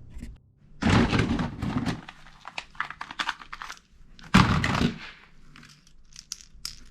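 Plastic toy guns being handled and worked: clicks and clatter, with two louder bursts of rattle, about a second in and again about four and a half seconds in.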